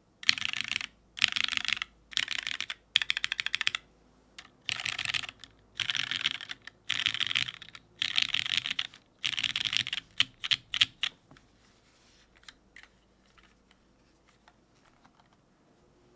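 Typing on a top-mount mechanical keyboard with lubed Cherry MX Black linear switches on a full aluminium plate and GMK keycaps: fast clacky bursts of keystrokes with short pauses between them. After about eleven seconds the typing thins to a few single keypresses, then stops.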